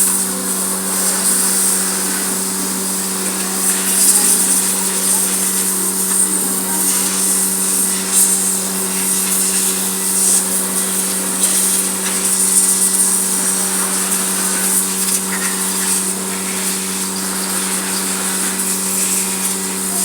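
A small motor running with a steady hum, under a high hiss that swells and fades, typical of a spray or air jet cleaning an engine.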